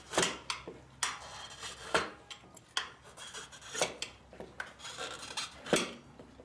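Steel tire iron levering a dirt-bike tire bead over the rim: a series of sharp metal clinks and knocks with rubbing and scraping between them.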